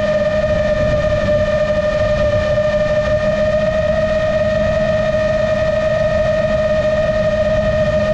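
Motors and propellers of a GepRC MOZ-7 seven-inch long-range FPV drone running at steady cruise throttle: a constant whine holding one pitch with its overtones, over a low rumble of wind on the onboard GoPro's microphone.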